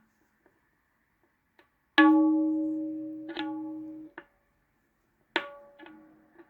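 Tabla head struck to check whether the buzz from a loose flake of the shyahi (the black tuning patch) is gone. A few faint taps come first. About two seconds in, a loud ringing stroke sustains for about two seconds and is restruck once, followed by a short damped tap. Near the end comes another ringing stroke with a quick tap after it.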